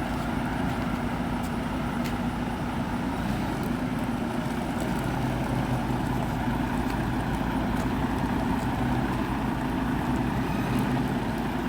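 Volvo VNL semi-truck's diesel engine running steadily at low speed while the truck is maneuvered, a constant low hum.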